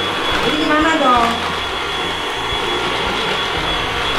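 Cordless stick vacuum cleaner running steadily, a rush of air under a constant high motor whine.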